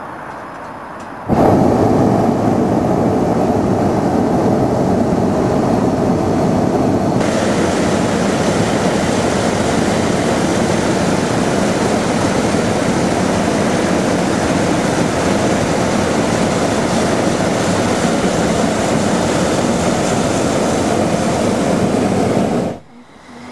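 Hot-air balloon's propane burner firing in one long blast, a loud steady roar that starts suddenly, turns harsher about seven seconds in, and cuts off sharply near the end.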